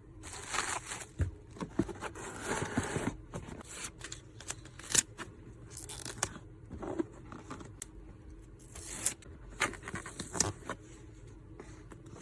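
Packing materials being handled by hand: rustling and scraping of paper or plastic for the first few seconds, then a scattering of sharp clicks and taps as items are handled and set down.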